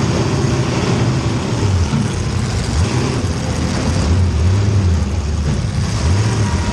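Race car engine revving up and down over and over, its pitch climbing and dropping every second or so as the throttle goes on and off.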